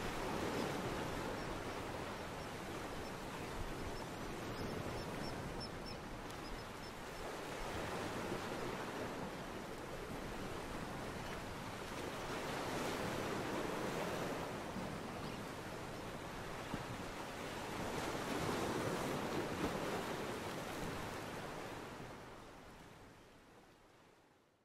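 Lake waves washing against the shore, rising and falling in slow swells a few seconds apart, fading out near the end.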